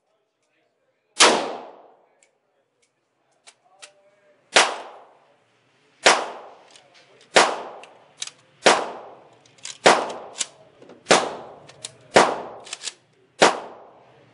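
Nine rifle shots from a FEG AMD-65 AK firing 7.62x39 through its muzzle brake, each loud crack followed by a ringing echo. The first shot comes alone about a second in; after a pause the other eight follow at a steady semi-automatic pace, about one every second and a quarter. A few fainter, sharper cracks fall between the shots.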